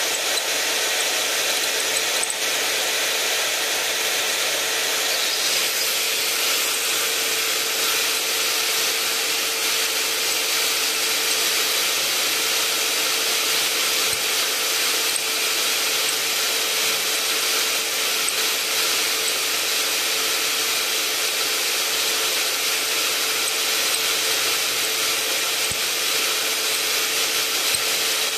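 Power drill running steadily with a 3/8-inch Milwaukee Shockwave bit cutting into a hardened steel wheel-spacer bolt: a continuous grinding hiss of metal being cut, with a constant whine underneath.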